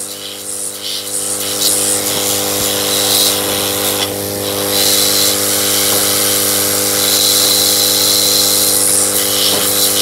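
Hot air gun running steadily: a motor hum with a constant rush of blown air. It is blowing on the plastic body of an e-rickshaw charging socket to soften it so the pins can be pulled out.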